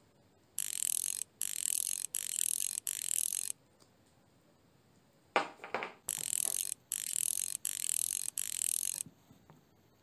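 Raspy ratcheting, grinding sound of a brass hinge finial being twisted off the hinge pin, in two sets of four short strokes of about half a second each. Between the sets there is a brief knock of fingers handling the metal.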